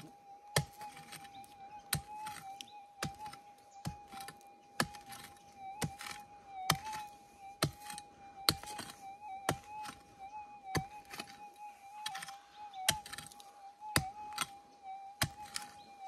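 Pick strikes into the ground about once a second, digging out a detector target, over a metal detector's steady, slightly wavering threshold hum.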